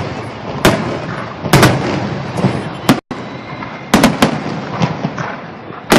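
Aerial fireworks shells bursting in a run of sharp booms, several in a few seconds, with a rumbling wash between them.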